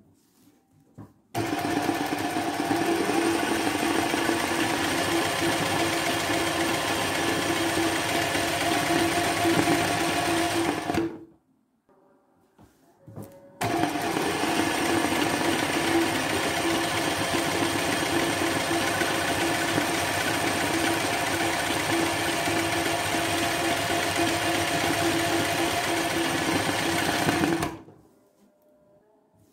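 Sewing machine running steadily at speed as it stitches thread embroidery into a leaf motif, in two long runs with a short stop of a couple of seconds between them. It starts about a second in, pauses around the middle, and stops shortly before the end.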